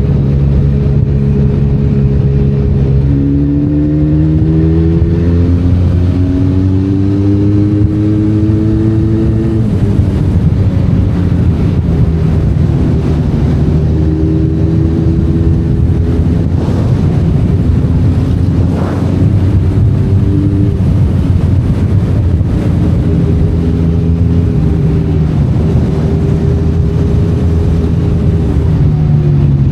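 Benelli Leoncino 500 Trail's parallel-twin engine under way, revs climbing for several seconds, then dropping suddenly about a third of the way in. It runs at steadier, gently changing revs after that and picks up again near the end.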